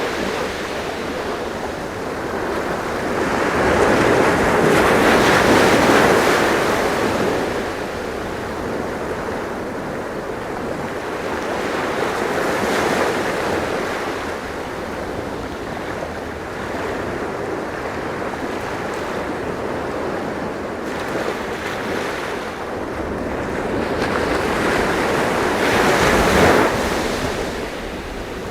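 Ocean waves washing onto a shore in slow swells, the surf hiss rising and falling, loudest about five seconds in and again near the end, with some wind.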